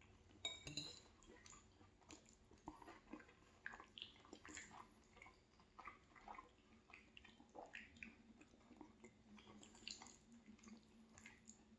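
Faint chewing of soft orecchiette pasta in tomato sauce: quiet, irregular wet mouth clicks and squishes, with a brief light clink about half a second in.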